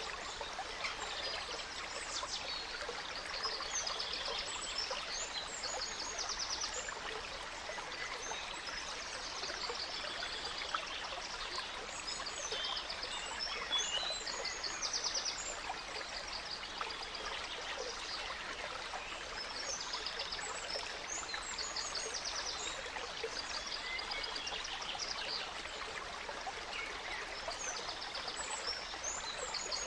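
A gentle stream trickling steadily, with several songbirds singing over it in repeated trills and chirps.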